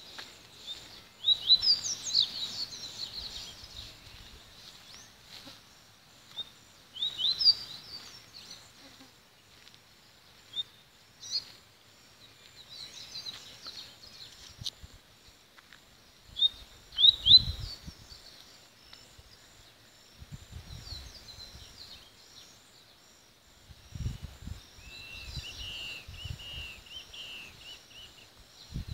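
A papa-capim, a Sporophila seedeater, singing in short bursts of high, quick chirps and trills, with a run of repeated notes near the end. A few low thumps of wind or handling come in the second half.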